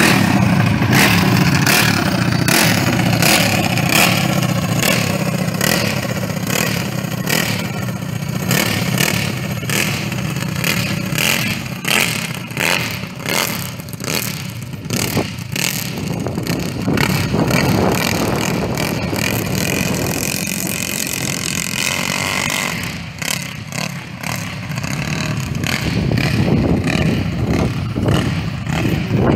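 Racing kart powered by twin Predator single-cylinder four-stroke engines, running hard as it pulls away. The engine note grows fainter as the kart goes far off, then louder again near the end.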